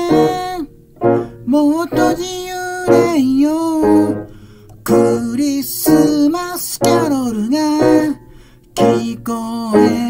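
A man singing a Japanese pop ballad to his own electronic keyboard accompaniment, with piano chords struck about once a second under the held, wavering sung notes.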